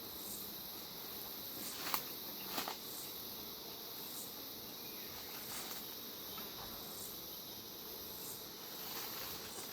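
Steady, high-pitched chirring of insects, pulsing in a loose rhythm. Two short knocks come about two seconds in.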